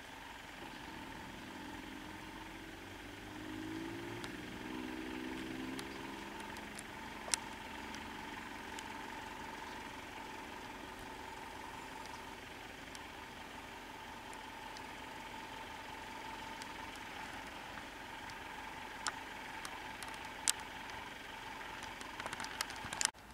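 Vehicle engine idling steadily, growing louder for a few seconds about three seconds in, with a few sharp clicks over it.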